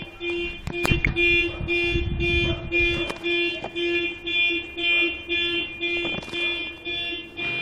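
Car alarm sounding a pulsed electronic beep, about two to three beeps a second, set off by the earthquake's shaking. A few knocks and a low rumble of handling sound in the first three seconds.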